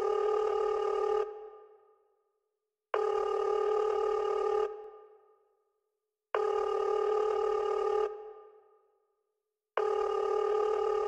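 Sampled telephone ringing: four rings of about 1.7 s each, roughly three and a half seconds apart. Each ring cuts off sharply and trails away in an echo.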